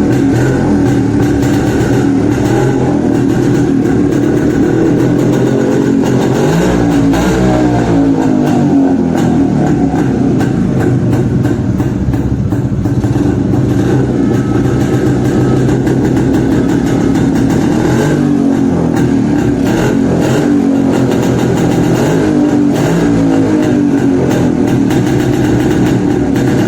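Yezdi motorcycle's two-stroke engine running after restoration, revved up and let back down twice, about a quarter and about two-thirds of the way in.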